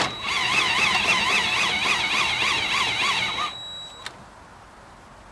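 Cordless power drill whining as it turns the spare-tire winch of a GM full-size truck, winding the spare tire back up. The pitch wavers about four times a second, and the drill stops about three and a half seconds in. A single click follows.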